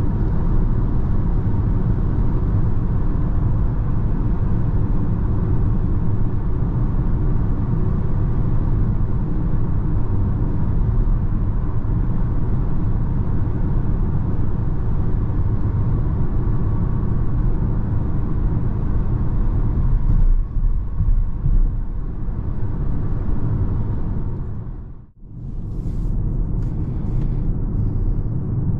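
Tyre and wind noise inside the cabin of a Peugeot e-2008 electric SUV at motorway speed: a steady low rumble. It dips out briefly near the end.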